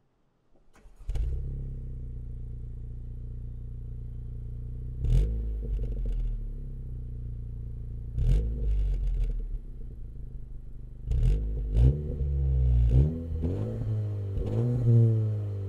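Honda Civic hatchback engine heard through its Mugen muffler, starting up about a second in and settling into a steady idle. It is then blipped several times, each a quick rise and fall in revs; the blips come closer together in the last few seconds, and the revs begin to climb again at the very end.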